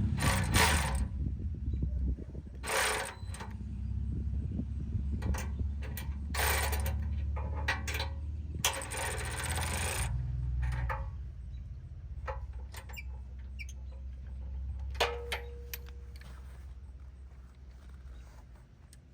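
Mechanical tool work, with ratchet-like clicking and several short noisy bursts over a low rumble. The rumble fades during the second half.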